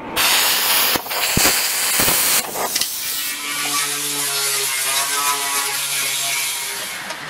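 Plasma cutter hissing as it cuts through rusty sheet steel for the first two and a half seconds or so. Then an angle grinder with a wire cup brush runs against the rusty steel, its motor humming steadily under the scratching of the wire.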